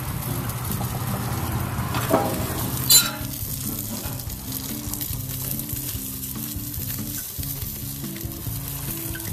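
Oiled corn on the cob sizzling steadily on aluminum foil over a hot gas grill. Two short sharp knocks come about two and three seconds in, the second louder.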